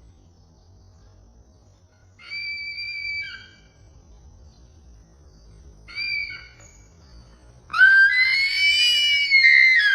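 A bird calling three times: a call of about a second, a short call a few seconds later, then a loud call of about two seconds that rises in pitch and falls again near the end.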